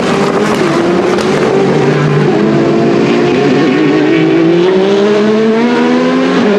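Gibson GL458 4.5-litre V8 of a Vanwall Vandervell 680 Le Mans Hypercar at racing speed. The engine note dips briefly near the start, then rises steadily for several seconds as the car accelerates, and drops suddenly at an upshift right at the end.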